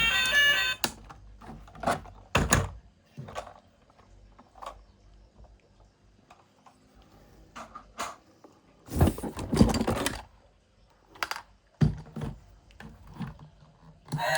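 Scattered clicks, taps and knocks of hard plastic toy vehicles being handled, busier about two seconds in and again around nine to ten seconds in. Background music cuts off just under a second in and comes back at the very end.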